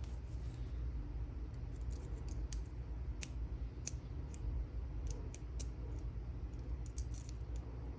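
Small, sharp metallic clicks, a dozen or more at irregular intervals, from resetting the pins of a self-impressioning pick for a lever safe lock, over a low steady hum.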